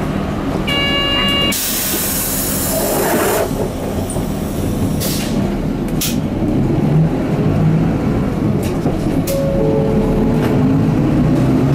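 Inside a Mitsubishi Fuso Aero Midi MK bus with its 6M61 six-cylinder diesel running: a short chime about a second in, then a loud hiss of compressed air for about two seconds, and a few sharp clicks. Near the end the engine rises in pitch as it revs up.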